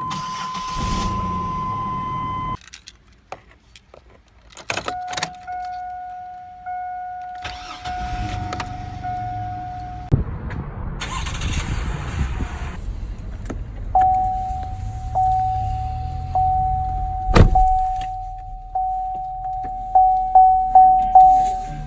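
Chevrolet Blazer's ignition warning chime and engine start: a steady electronic tone, key clicks, then another steady chime tone while the starter cranks and the engine catches about ten seconds in and idles. Over the idle the chime dings again and again, faster near the end, with one sharp knock in between.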